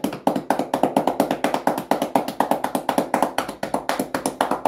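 Cupped hands rapidly patting a horse's shoulder muscles in cupping tapotement, a massage percussion stroke: an even, fast rhythm of pats, about eight a second, that stops just after the end.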